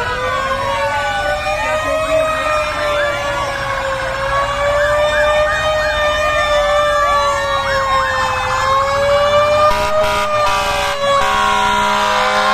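Several emergency-vehicle sirens sounding at once from fire engines and an ambulance, their wailing and fast yelping tones overlapping and sliding up and down. Near the end a steady horn-like note sounds over them.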